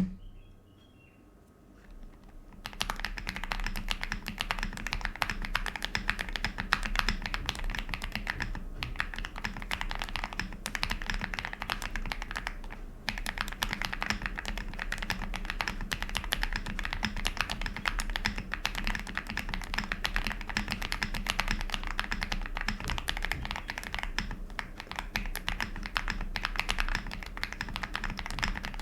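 Fast continuous typing on a KBDfans Tiger 80 Lite custom mechanical keyboard modded for a creamy sound, starting about three seconds in after a single knock, with two brief pauses.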